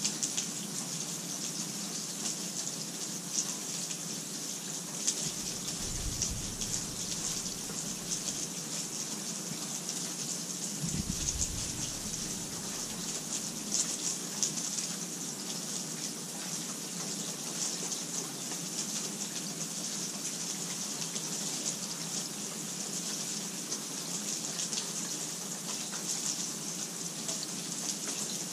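Steady rain falling, a dense patter of drops with a faint low rumble twice.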